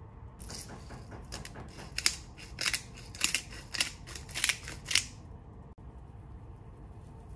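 Hand-twisted pepper mill grinding black pepper over a bowl of pasta: a quick series of short grinding strokes, louder from about two seconds in, that stops about five seconds in.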